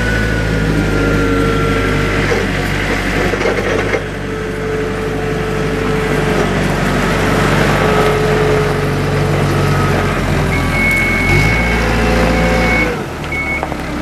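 Terex TX5519 telehandler's Perkins diesel engine running as the machine drives, with a whine that wavers in pitch. The engine note changes a few seconds before the end, and a higher steady whine comes in for about two seconds.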